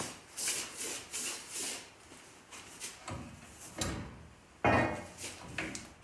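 Hand work on a pickup truck's front brake hub and suspension: short rubbing and scraping strokes over the first two seconds, then a few knocks of metal parts, the loudest about four and a half seconds in.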